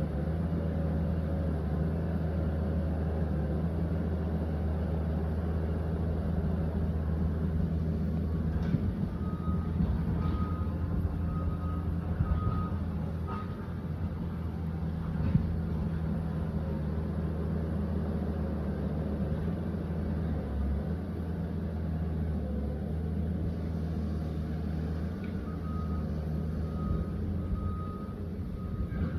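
Liebherr 744 crawler dozer's diesel engine running steadily under work, with its reversing alarm beeping about once a second in two spells, about nine seconds in and again near the end. A few sharp metallic knocks sound over the engine.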